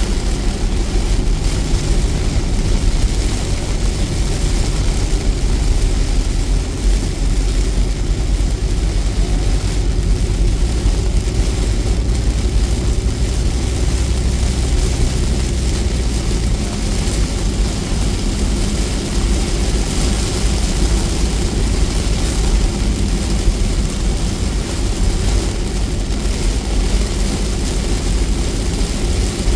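Steady road and engine rumble inside a moving car's cabin, with heavy rain beating on the windshield and roof during a downpour.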